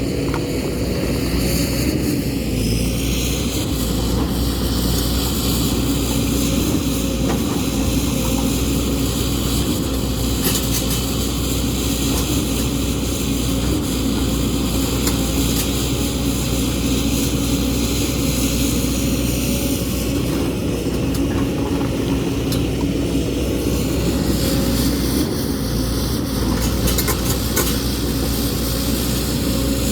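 JCB excavator's diesel engine running steadily under load, a constant low drone with a few faint clicks over it.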